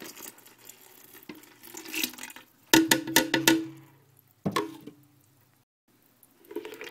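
Broth being poured into a metal stockpot of beans, then a quick run of clinks and knocks of a spoon against the pot about three seconds in, and a few more near five seconds.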